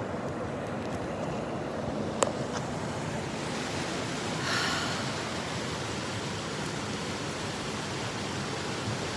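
Steady outdoor wind noise, an even hiss with no voice. A sharp click about two seconds in and a short louder swell a little after four seconds.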